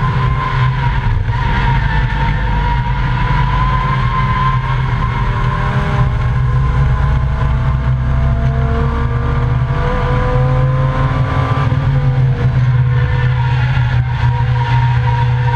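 Volvo 855 race car's inline five-cylinder engine heard from inside the caged cabin, running hard through the laps with a heavy low rumble. Its pitch rises and falls with throttle and gear changes, most clearly climbing partway through and shifting again a little later.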